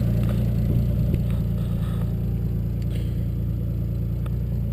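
Toyota 2JZ-GTE inline-six, fitted with a Turbonetics T70 single turbo, idling steadily while still warming up from a cold start, with faint light ticks over the even exhaust note.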